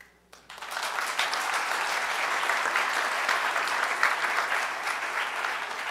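Applause: many people clapping together, starting about half a second in and holding steady.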